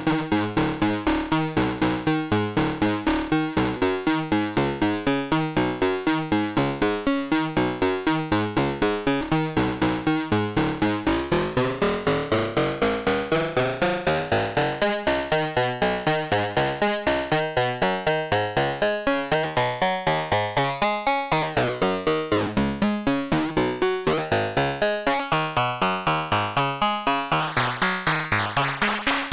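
CubuSynth Engine, a dual analog VCO module built around the 3340 chip, playing synthesizer music: a fast, even pulse of short repeating notes over a held tone that glides upward about a third of the way in. Near the end the sound turns brighter, with a sweeping timbre.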